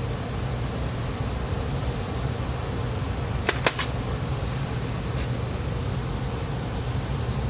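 Steady low mechanical hum, like a fan running, with two sharp clicks in quick succession about halfway through.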